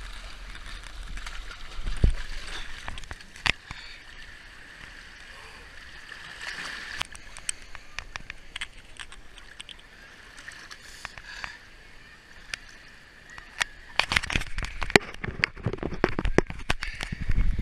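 Sea water sloshing and lapping at the shore, with many small clicks through it; it turns louder and rougher about fourteen seconds in.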